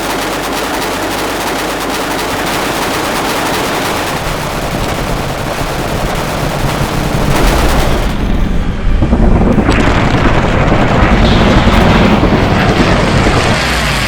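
Machine-gun fire: a rapid, unbroken stream of shots for about the first eight seconds. It then gives way to the loud propeller-engine noise of the P-40 Warhawk passing close by.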